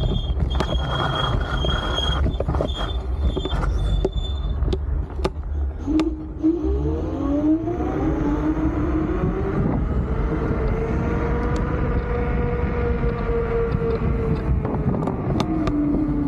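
Electric scooter's motor whining as it speeds up, holds a steady speed, then eases off near the end, over wind rumble on the microphone.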